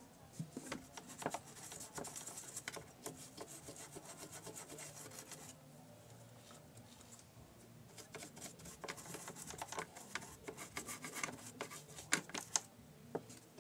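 Scratchy scrubbing and rubbing on a Singer portable sewing machine as it is cleaned, in two spells of quick strokes with a pause of about two seconds between.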